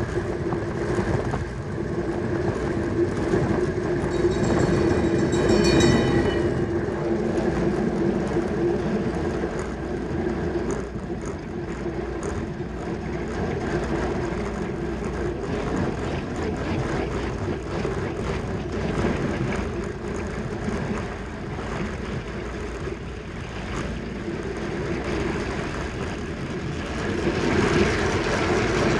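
Track bicycles racing on a velodrome: a steady rush of wind and tyre rumble, with a brief high ringing about four seconds in.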